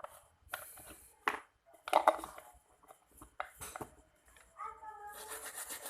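Irregular short bursts of scraping and clicking from cleaning a water-damaged phone circuit board, the loudest about two seconds in. A voice is heard in the background near the end.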